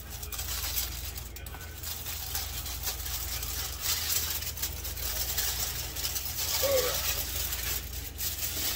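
Aluminium foil crinkling and crackling as it is peeled back off a foil roasting pan, loudest about halfway through.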